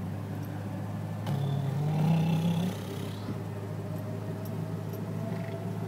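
Jeep engine running steadily under load in four-low, second gear, on a steep climb. About a second in, a louder rising tone joins for about a second and a half.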